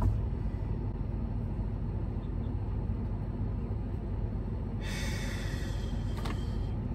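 Steady low hum of an idling car, heard from inside the cabin, with a person's breath or sigh about five seconds in.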